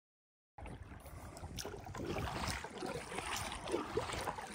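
Silence for about half a second, then a kayak paddle's blades dipping and splashing in lake water stroke after stroke, with water lapping and small irregular splashes.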